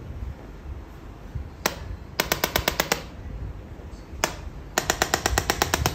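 Radial shockwave therapy handpiece firing pulses into the upper back: a single click, then a rapid run of clicks at about twelve a second. After a pause comes another single click, then a second, longer run near the end.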